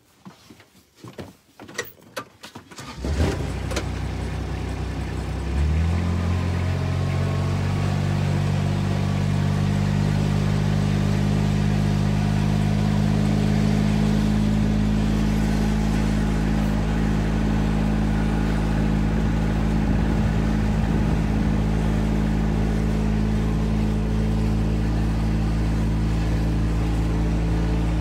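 Farm utility vehicle engine starting after a few clicks and knocks about three seconds in. The engine note steps up a couple of seconds later, then runs steadily as the vehicle drives.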